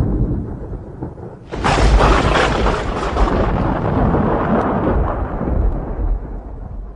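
Thunder: a rumble fading away, then a sharp, loud thunderclap about a second and a half in that rolls on into a long, fading low rumble.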